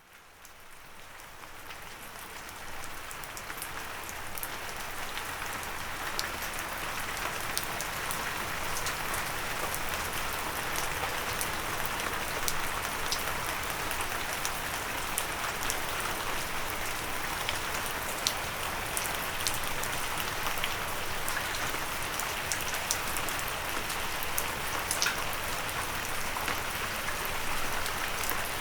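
Steady rain falling, with many distinct raindrops ticking on a hard surface over the even hiss of the downpour. It fades in over the first few seconds.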